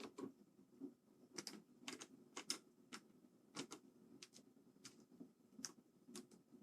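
Faint, irregular small clicks and taps of hard parts being handled as a mechanical keyboard's case is screwed back together.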